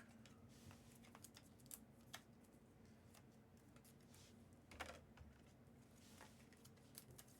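Near silence broken by faint, scattered light clicks and taps, with a soft handling bump about five seconds in: small handling noises at a card-opening table.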